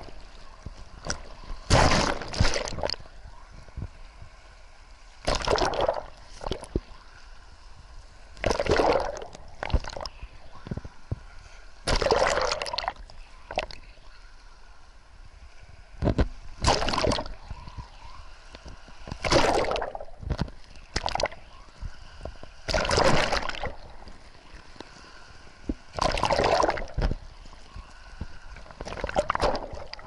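Small sea waves break over a rocky shelf and wash over a camera sitting at the waterline. A splashing surge comes about every three seconds, with quieter sloshing and gurgling between.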